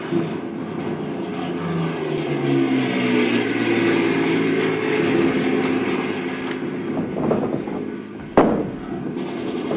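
Battle sound effects: a steady engine-like drone and rumble, with shifting droning tones through the middle, and a sharp bang about eight seconds in.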